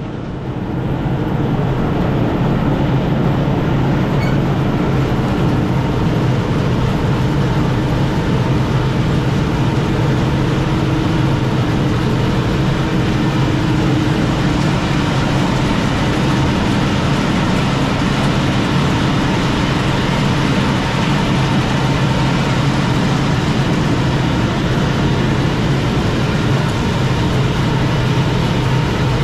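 A motor-driven machine running steadily with a low hum, coming up to full level within the first second.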